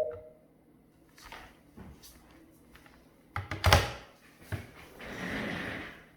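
Handling knocks in a small room: a few light clicks, a heavy thump about three and a half seconds in and a smaller knock a second later, then about a second of rustling.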